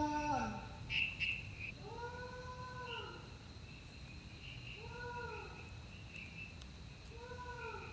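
An animal calling three times, a few seconds apart. Each call is a meow-like cry about a second long that rises and then falls in pitch, over a faint, steady high-pitched hum.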